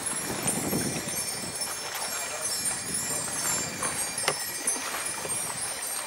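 Many small hanging wind bells tinkling in the breeze, with a single sharp knock about four seconds in.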